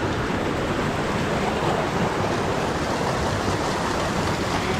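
Steady, even rush of a waterfall and its stream.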